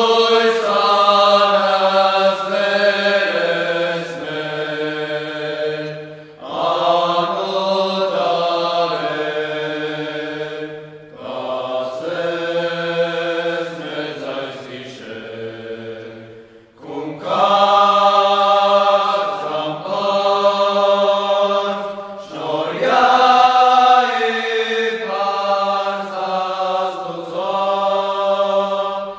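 Armenian church chant sung in long, slow held phrases, about five of them with short pauses for breath between.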